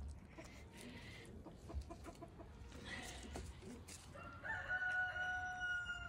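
A rooster crowing once: one long call in the last two seconds, with fainter short calls earlier.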